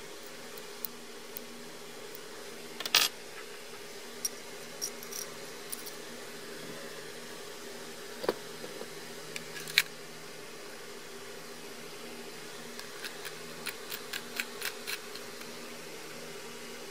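Small metal parts of a soldering iron clicking and tapping as they are handled and fitted together, with a louder clack about three seconds in and a quick run of light clicks near the end, over a steady low hum.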